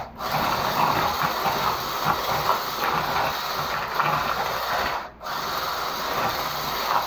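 Electric handheld stick mixer running steadily as it beats cake batter in a plastic bowl. It cuts out briefly twice, just after the start and again about five seconds in, then runs on.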